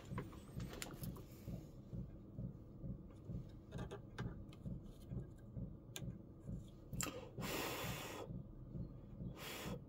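Quiet hands-on soldering work: a few light clicks of tools against the chassis, and two short soft hisses, one lasting about a second from about seven seconds in and a shorter one near the end.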